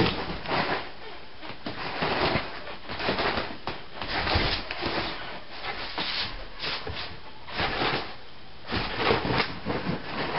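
Duvet and bedsheets rustling in quick, irregular swishes as a Jack Russell terrier rubs, rolls and burrows through the bedding.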